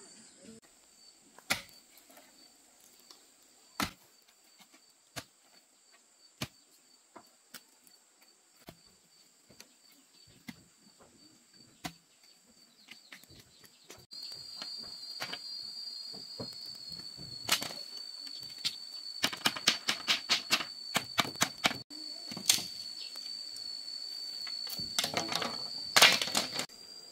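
Irregular sharp knocks and taps, with quick rattling runs of them past the middle and again near the end, over a steady high insect trill that grows louder about halfway through.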